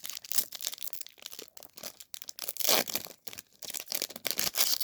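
Wrapper of a 2024 Bowman U football trading card pack crinkling and tearing open, a run of rustles and sharp crackles, loudest about three seconds in and again near the end.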